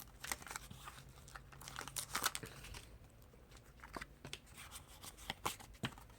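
Faint crinkling of a foil Pokémon card booster pack wrapper, with light clicks and rustles of the cards being handled as the pack is opened.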